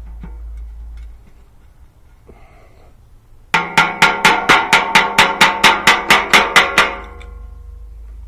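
Rapid run of sharp metallic clicks at the hub of an aluminium condenser fan blade, about six a second for some three seconds, each click setting the blade ringing. The clicks start about three and a half seconds in and stop abruptly.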